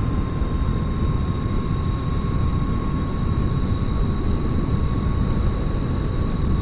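Heavy wind rush over the microphone of a BombMoto B1 electric dirt bike riding at about 45–48 mph, with a thin, steady high whine from its electric drive that creeps slightly up in pitch as the bike gains speed.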